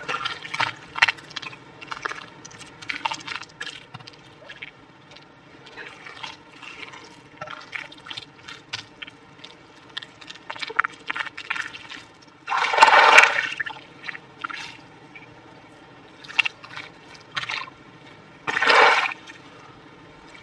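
Wet mud squelching and smacking in irregular short strokes as bare hands press and smooth it. Two louder bursts of about a second each come about two-thirds of the way through and near the end.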